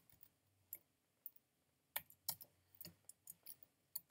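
Faint keystrokes on a computer keyboard: a few scattered taps in the first second or so, then a quicker run of typing from about two seconds in.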